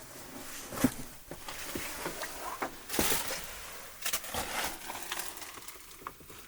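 Irregular knocks, clicks and rustling of items being handled and stepped among in a cluttered room, with a sharp knock about a second in.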